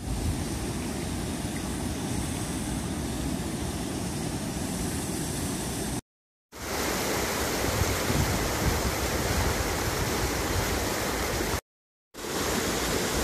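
Swollen river water rushing: first pouring over a low dam spillway, then churning fast through a narrow concrete channel, as a steady rush of water noise. It cuts out twice for about half a second.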